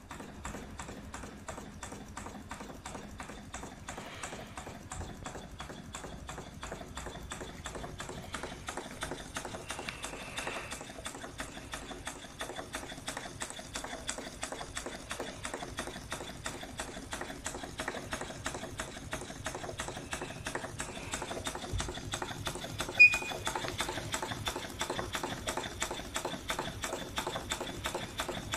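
Model O.B. Bolton type triple-expansion engine running on compressed air: a rapid, even clatter of air exhaust puffs and moving rods and valve gear, gradually getting louder. A single sharp click stands out about three quarters of the way through.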